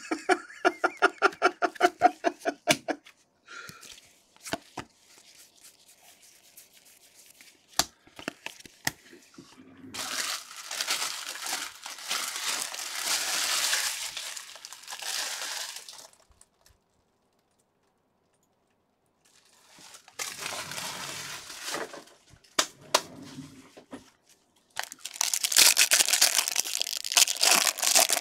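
Plastic wrapper of a Bowman baseball jumbo card pack crinkling and being torn open, in three long bouts of crackling with short pauses between.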